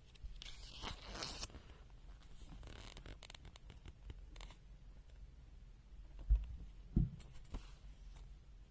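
Handling noise: a rasping scrape like a zipper or tearing, then a few light clicks and two dull knocks.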